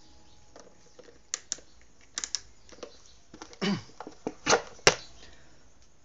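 Irregular sharp plastic clicks and knocks, a dozen or so, from a plastic table fan being handled at the blade and motor housing; the two loudest come close together near the end.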